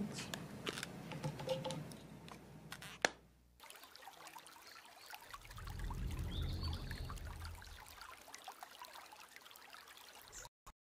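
Faint room noise picked up by the podium microphone: scattered clicks and rustling, cut off abruptly, then a low rumble with a faint hiss.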